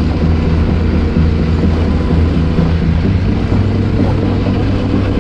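Yamaha Ténéré 700 parallel-twin motorcycle engine running at a steady speed while riding, with wind noise over it.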